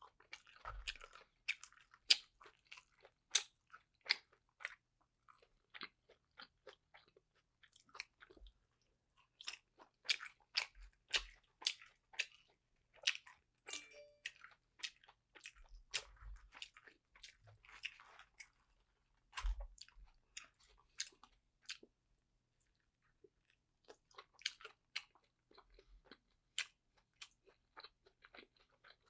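A person chewing dumplings: many short, sharp clicking mouth noises in uneven clusters, with a brief lull about two-thirds of the way through.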